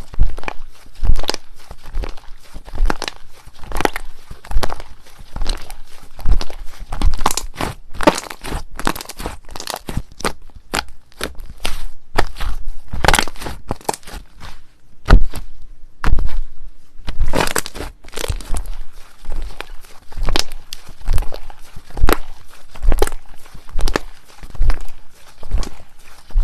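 Slime being worked by hand, making a run of irregular sharp crackling pops, with a brief pause about fifteen seconds in.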